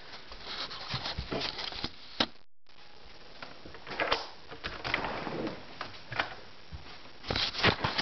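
Scattered rustles, knocks and clicks of close handling and movement, with no steady sound; the audio drops out completely for a moment about two and a half seconds in.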